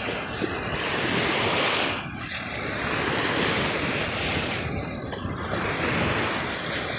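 Wind-driven waves on a lake lapping and splashing against the shore in a steady wash that swells and eases every second or two, with wind buffeting the microphone.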